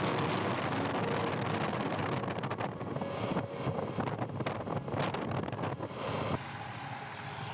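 A small engine running, mixed with a rushing noise, with an abrupt change in the sound about six seconds in.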